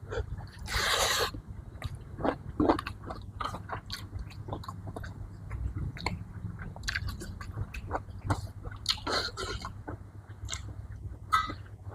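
A person chewing and biting food close to the microphone, with many short wet clicks and crunches. There is a longer noisy burst about a second in, over a steady low hum.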